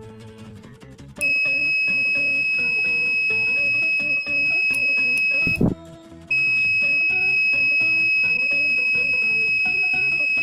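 Electronic buzzer of a breadboard fire alarm circuit sounding its alarm: a high, steady beep in two long stretches of about four seconds each, with a short break between. Guitar music plays underneath.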